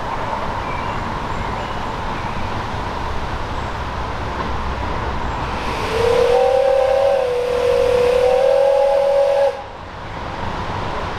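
A 10¼-inch-gauge miniature steam locomotive sounds its steam whistle about six seconds in. It is one long blast of about three and a half seconds, with a rush of steam, and it wavers briefly partway through.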